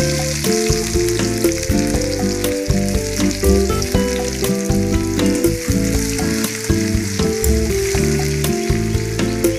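Sliced onions sizzling and crackling in hot oil in a steel kadai, with a spatula stirring them near the end. Background music plays underneath.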